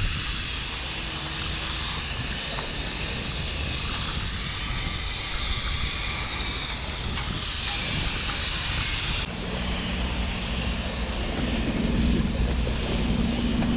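Steady low mechanical rumble and noise from the shipyard across the harbour. About nine seconds in the sound changes abruptly, and a steadier low drone with two held tones comes in.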